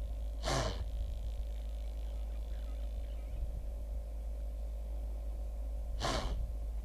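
Blue wildebeest snorting twice, each a short sharp blast of breath through the nose, about five and a half seconds apart, over a steady low rumble.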